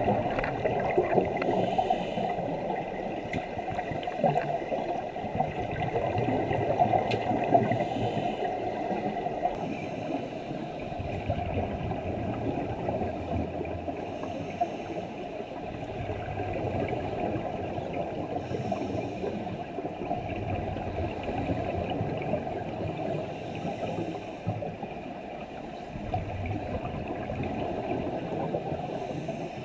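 Muffled underwater noise in a diving pool, heard through a waterproof camera housing: a steady low rumble and gurgle. Brief bubbly hisses every few seconds are scuba divers' exhaled regulator bubbles.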